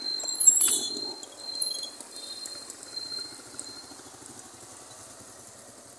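Outdoor street ambience: a steady high-pitched whine over a faint noise haze, with a short click about three-quarters of a second in. The whine stops about three and a half seconds in, and the whole sound gradually fades.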